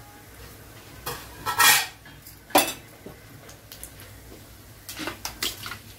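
A spatula scraping and knocking against a kadai in a few separate strokes, the sharpest about two and a half seconds in, while mustard seeds and dal fry in a little oil; a cluster of short clicks comes near the end.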